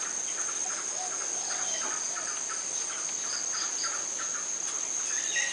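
Aviary ambience: a steady high-pitched insect trill runs throughout, with frequent short bird chirps, several a second.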